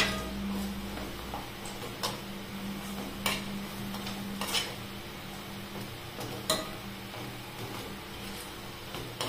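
Urad dal vadai frying in hot oil in a metal kadai, a steady sizzle, with a few sharp clicks as a metal skewer knocks against the pan while turning them.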